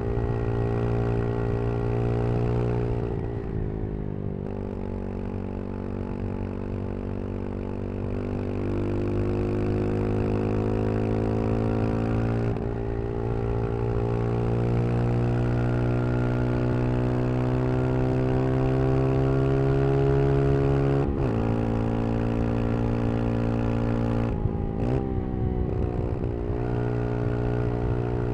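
Brixton Crossfire 125 XS's small single-cylinder engine running under way, its note rising slowly as the bike accelerates. It is broken by several gear changes, the last two close together near the end.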